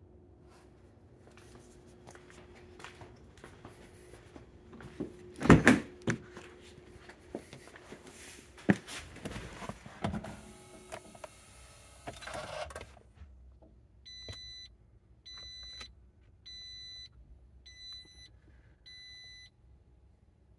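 Several knocks and thumps, the loudest a little over five seconds in, then a Toyota RAV4 EV's dashboard warning chime beeping five times, a little over once a second, as the car is switched on.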